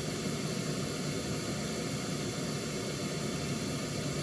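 Pink noise played through a Blue Sky Sat 6.5 studio monitor as a steady, even hiss. This is the speaker with the healthy tweeter, measuring flat at 4 kHz, with no dip.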